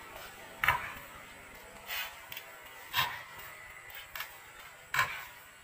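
Basketball bouncing on a concrete court: four separate sharp thuds, one to two seconds apart.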